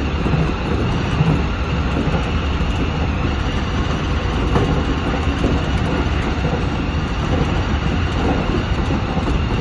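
Seibu 6000-series electric commuter train running steadily at speed, heard from the driver's cab: continuous rumble of wheels on rails.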